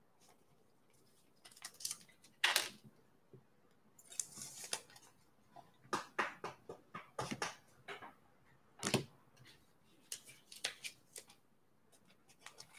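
Trading-card pack wrappers crinkling and tearing as packs are opened and the cards are handled: faint, irregular short crinkles and rustles, a little louder about two and a half seconds in and again near nine seconds.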